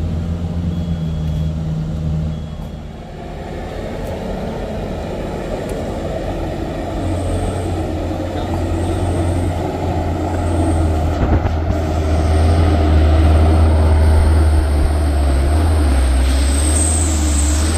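Heavy truck's diesel engine running under load with a deep, steady drone that builds over several seconds and is loudest past the middle. Faint short high beeps repeat a few times.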